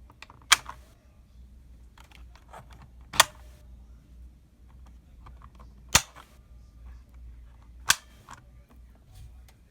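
Four sharp, loud clicks a few seconds apart, with fainter ticks between, from an E-Element Z88 mechanical keyboard being worked or handled on a desk.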